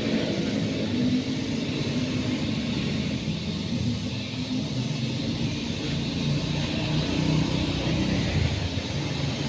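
An engine running steadily at an even speed, with a faint high hiss pulsing about once a second over it.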